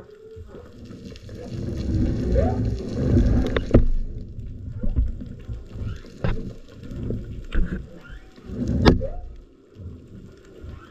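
Muffled underwater water noise picked up by a camera as a spearfisher swims: an uneven low rush that swells and fades, broken by several sharp clicks and knocks.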